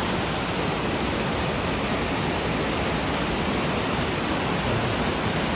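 Waterfall on a mountain stream pouring steadily: an even, unbroken rush of water.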